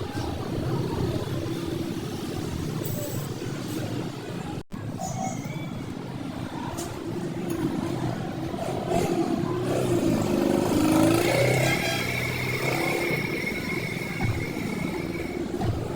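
Motor vehicle engine running, with a brief cut about five seconds in.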